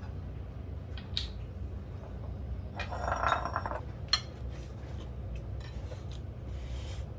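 Eating utensils clinking and tapping against dishes at a meal, a few separate clicks, with a short scrape or rustle about three seconds in, over a steady low hum.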